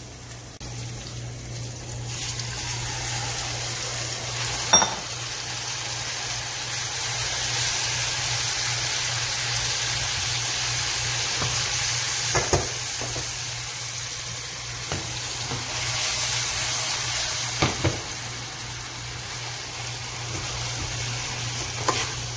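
Spaghetti with olives, onions and oil sizzling in a hot stainless steel skillet while it is stirred and tossed with a spatula. The sizzle builds after the first couple of seconds and holds steady, with a few scattered knocks of the spatula against the pan.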